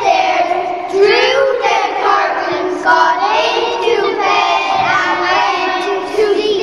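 A group of young children singing a song together in unison, in held phrases that change every second or so.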